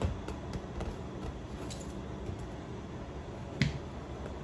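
A hand striking a plastic toy football on a tiled floor: one short, sharp smack a little past three and a half seconds in, with a few faint taps before it, over a steady low background hum.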